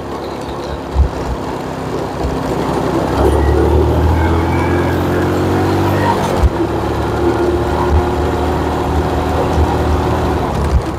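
Small motorcycle engine running at a steady cruise. It gets louder about three seconds in and its pitch eases down slightly around six seconds, with scattered short low thumps over it.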